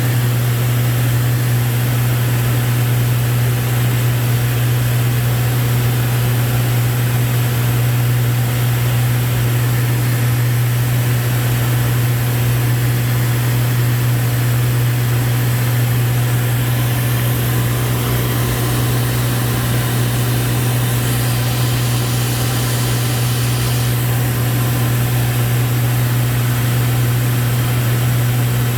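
Steady drone of a Lancair 4P's engine and propeller in cruise flight, heard inside the cockpit, with a strong low hum over a constant rush of air noise.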